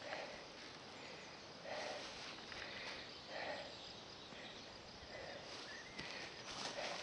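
Faint outdoor pasture ambience: a steady low hiss with a soft, short sound recurring about every one and a half seconds.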